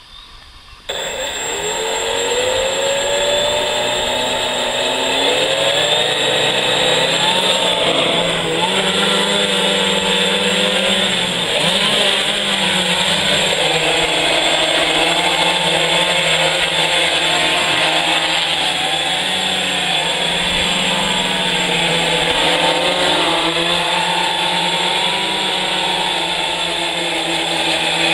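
Four 1000kv brushless motors spinning 14-inch carbon-fibre propellers on a large heavy-lift quadcopter. They start suddenly about a second in with a rising whine, then run loud, their pitch wavering up and down as the throttle changes to take off and fly.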